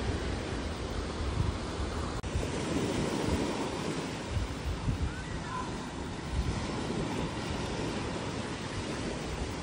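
Small Gulf of Mexico waves washing onto a sandy beach, with wind rumbling on the microphone in irregular gusts.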